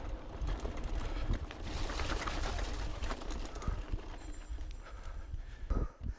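KTM Lycan 274 mountain bike ridden over dirt singletrack, heard from a camera on the rider: tyres on the dirt, the bike rattling and knocking over bumps, and wind rumbling on the microphone, with a hard thump near the end.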